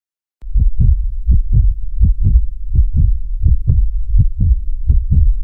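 Heartbeat sound effect: low double thumps, lub-dub, repeating about every 0.7 s, starting about half a second in.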